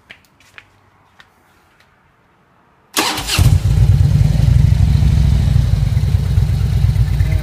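A few faint clicks, then about three seconds in the 2000 Harley-Davidson Electra Glide Ultra Classic's Twin Cam 88 V-twin is cranked by the starter, catches at once and settles into a steady, loud idle.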